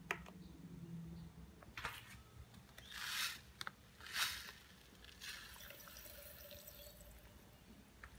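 Granulated sugar poured from a plastic bag into a plastic drink bottle: a few short hissing pours, then a longer, fainter one in the second half.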